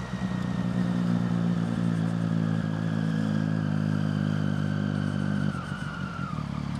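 Motorcycle engine running at a steady cruise with a faint high whine. About five and a half seconds in, the throttle eases off: the engine note drops and the whine slides down in pitch.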